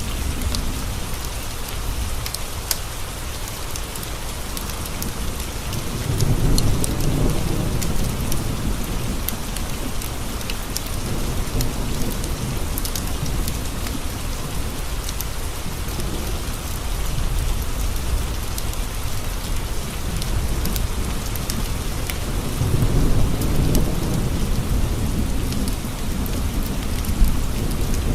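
Steady rain pattering on windowpanes, with low rolls of thunder swelling up about six seconds in and again a little past twenty seconds.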